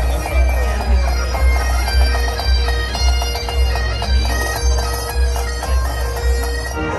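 Pipe band playing: bagpipes sound a melody over a steady drone, with a bass drum beating about twice a second.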